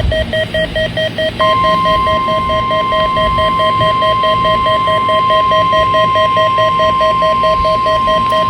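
A NOAA Weather Radio receiver sounds a rapid, evenly pulsed alert beep, about five beeps a second. About a second and a half in, the broadcast's steady 1050 Hz weather radio warning alarm tone comes in and holds. Together they mark the start of a Required Weekly Test activation.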